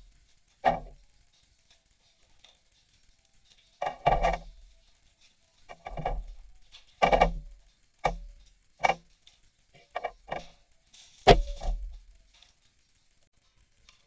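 A series of irregular knocks and clatters of hard objects being handled and set down, about nine in all, the loudest one a little over eleven seconds in.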